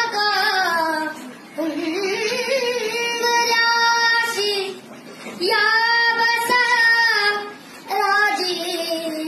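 A high voice singing unaccompanied, long held notes with a wavering vibrato in three or four drawn-out phrases, with slides between notes.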